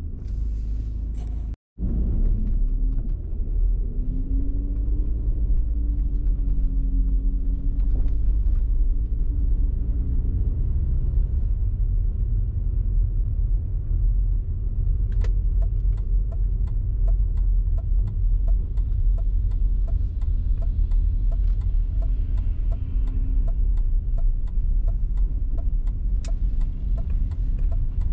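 Car driving: a steady low rumble of engine and tyres, with a rising and falling engine tone from a few seconds in. From about halfway a faint, regular ticking runs on, roughly two to three ticks a second.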